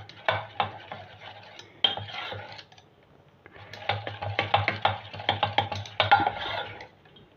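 Metal spoon stirring thick gram-flour batter in a steel bowl, clinking and scraping against the bowl's sides in quick repeated strokes, with a pause of about a second near the middle.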